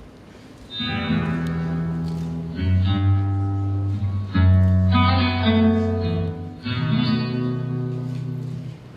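Instrumental backing music: four long held chords, one after another, each about two seconds, starting about a second in and stopping just before the end.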